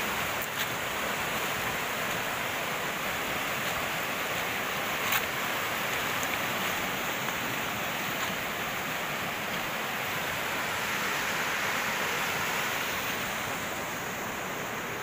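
River rapids rushing over rocks: a steady hiss of fast shallow water, with a brief sharp click about five seconds in.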